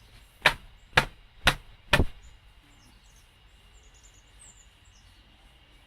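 Four sharp knocks about half a second apart: a small mower part being tapped against a hard surface to knock dirt off it.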